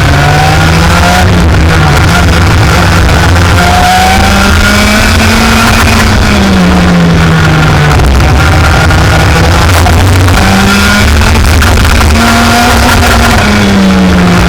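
Racing kart engine running flat out, its pitch climbing and falling several times as it accelerates and slows, with music playing along.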